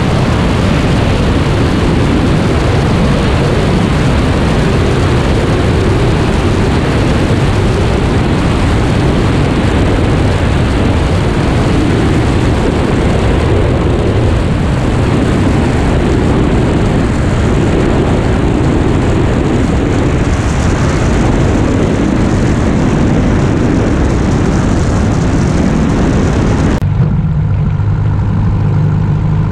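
Wind rush and engine noise of a Sonex light aircraft, heard from a camera mounted outside on the plane, through final approach and the landing rollout. About three seconds before the end it changes abruptly to the steady low hum of the engine idling on the taxi.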